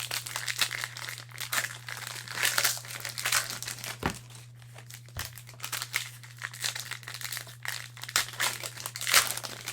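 Cellophane wrappers of trading-card fat packs being handled, torn open and crinkled by hand, in irregular crackling bursts. A steady low electrical hum runs underneath.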